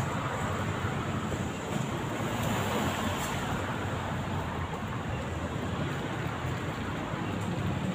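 Steady hum of road traffic nearby, an even wash of noise without breaks.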